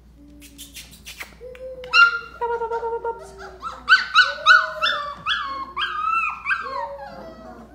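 Belgian Malinois puppies yipping and whining: a quick run of short, high yelps that each fall in pitch, sometimes two at once, loudest about four to five seconds in. A few sharp clicks come before the yelps start.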